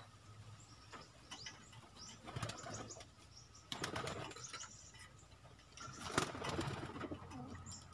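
Pigeons shuffling and flapping their wings inside a wood-and-wire cage, in a few short, faint flurries about two and a half, four and six seconds in.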